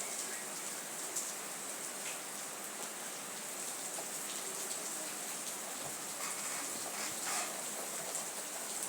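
Steady rain falling, an even hiss with a few sharper drop ticks.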